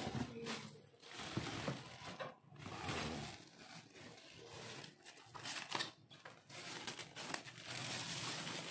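Clear plastic wrapping film crinkling and rustling in uneven bursts as it is handled and pulled off a new air fryer, with some tearing sounds.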